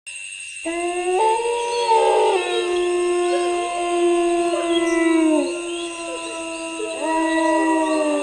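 Several canines howling together, long drawn-out overlapping calls that slide down in pitch as each one ends, starting about half a second in and rising again in a second wave near the end. A steady high-pitched drone runs underneath.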